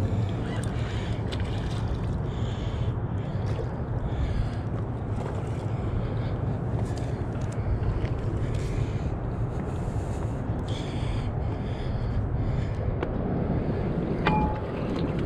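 Steady wind rumbling on the microphone, with one short sharp click about a second before the end.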